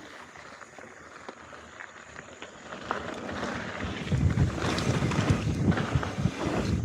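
Wind buffeting the microphone, with low rumbling and knocks, building from faint to loud about four seconds in as a mountain bike picks up speed down a trail.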